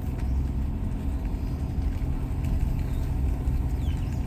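A vehicle's engine running steadily, with low road rumble, while driving uphill.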